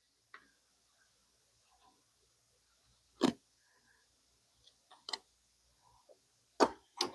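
Stitching on a denim jeans waistband being cut with a blade: four short sharp snaps, one about three seconds in, one about five seconds in, and two close together near the end.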